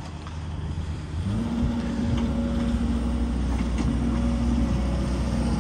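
Diesel engine of a Case tracked excavator running, its revs rising about a second in and then holding steady as the machine works.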